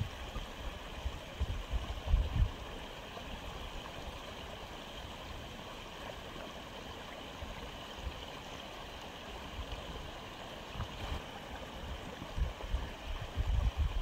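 Aquarium water flow: a steady watery hiss with some gurgling, and low rumbling bumps in the first two seconds or so.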